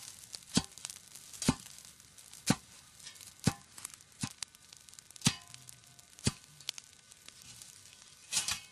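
A series of sharp, evenly spaced knocks, about one a second, each with a short echo after it.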